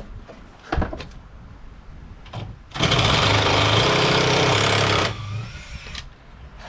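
A power drill-driver backing out a screw from the redwood gazebo wall, running steadily for about two seconds starting about three seconds in, with a few light knocks before it.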